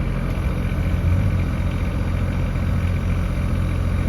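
Diesel engine of a new AGT NT30 mini excavator idling steadily, a pretty quiet, even low hum.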